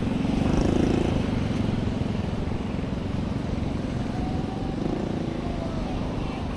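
A motor engine running, loudest about a second in and easing after, over a steady outdoor rumble of wind.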